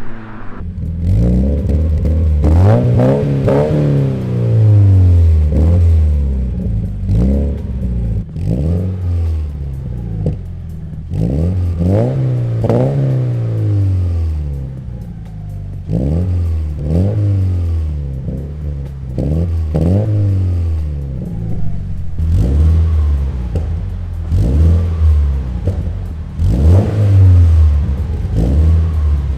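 Toyota GT86's flat-four boxer engine revved repeatedly through an MXP Comp RS aftermarket exhaust, each rev rising in pitch and falling back again.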